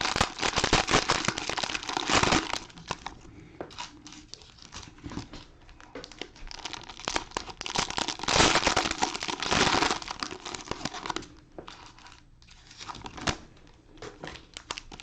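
Plastic cellophane wrappers of 2020 Panini Mosaic football card cello packs being torn open and crinkled by hand, in irregular bursts, loudest at the start and again around eight to ten seconds in.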